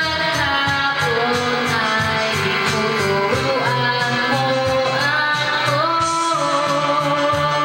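A woman singing a song into a microphone over a backing track with guitar and a steady beat.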